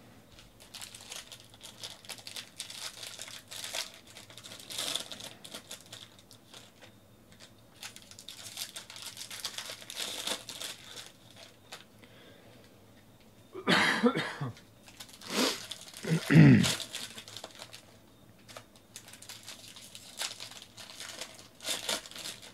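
Foil trading-card packs crinkling and tearing as they are opened by hand. Two louder coughs come about two-thirds of the way through.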